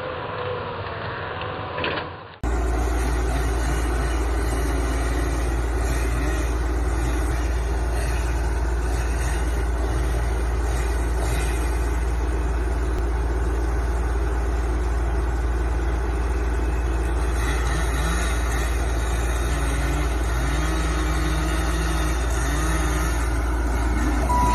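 Engine running steadily under a heavy, deep rumble, its pitch wavering up and down near the end. A hard cut about two seconds in switches from a duller sound to this one.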